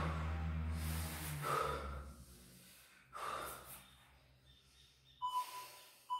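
A man breathing hard after an abdominal exercise: several deep, audible breaths a second or two apart, with a low background tone fading out about a second in.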